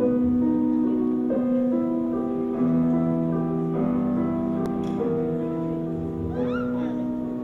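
Slow piano or keyboard background music, held notes changing one after another, getting gradually quieter toward the end.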